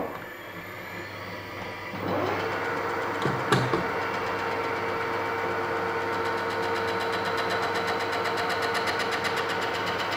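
Metal lathe starting up: the four-jaw chuck spins up over about two seconds and then runs at a steady speed with a steady hum. There is a brief knock about three and a half seconds in, and a fast, fine high ticking joins about halfway.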